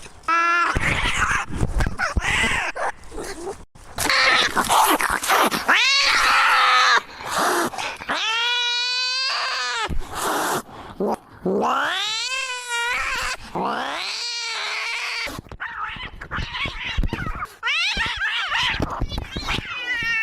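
A domestic cat screaming: a string of long, drawn-out yowls that rise and fall in pitch, cut together one after another with abrupt breaks and noisy stretches between them.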